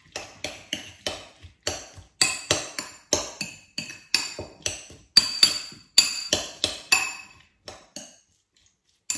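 Metal spoon stirring chopped salsa in a ceramic bowl, knocking the rim and sides in a quick run of ringing clinks, about three a second, which stops shortly before the end.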